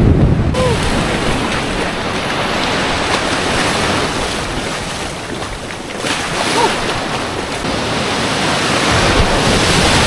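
Sea waves breaking and washing up in shallow surf: a steady rushing hiss of foaming water.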